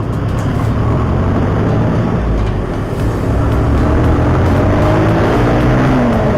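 Vehicle engine running under way, heard through an action camera's external mic with a steady rumble. In the second half the engine note climbs in pitch as it accelerates.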